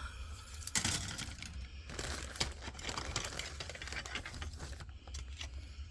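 Plastic model-kit parts being handled: crinkling plastic and many light, irregular clicks and rustles as the sprues are shuffled and turned over.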